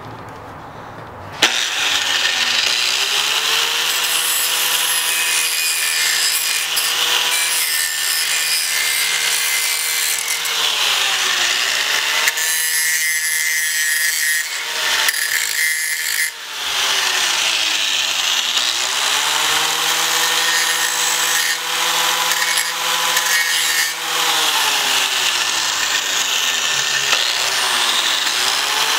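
Ryobi angle grinder switching on about a second and a half in and grinding the edges of a steel shock tab mount in a vise, a steady harsh grinding. The motor's whine sags in pitch and recovers a few times as the disc is pressed into the steel and eased off.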